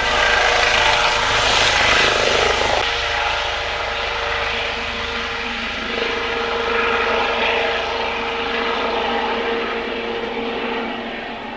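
Rescue helicopter's rotor and turbine running with a steady whine, the sound dropping about three seconds in and then fading slowly as it flies off after lift-off.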